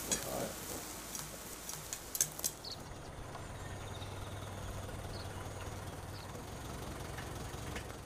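Charcoal grill crackling and sizzling under skewered mudskippers, with sharp pops. About three seconds in it gives way to a steady low hum with a few faint high chirps.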